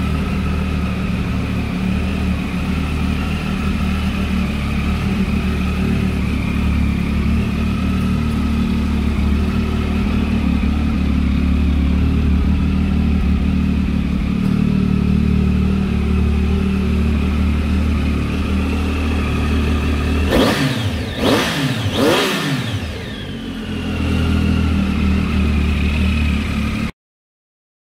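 Triumph Tiger 800 XC's three-cylinder engine idling steadily through a Scorpion aftermarket exhaust. About twenty seconds in it is revved three times in quick succession, each rev rising and falling, then settles back to idle. The sound cuts off abruptly near the end.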